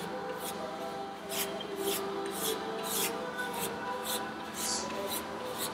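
Wide flat paintbrush swept back and forth across a small canvas board, about two brush strokes a second, over quiet background music.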